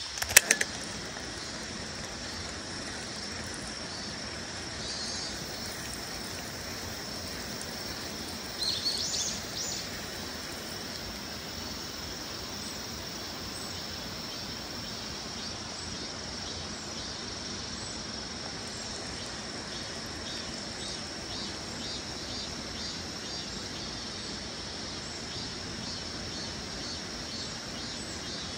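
Steady high-pitched drone of summer insects over a low outdoor hiss, with a sharp click about half a second in and a few short rising bird chirps around nine seconds in.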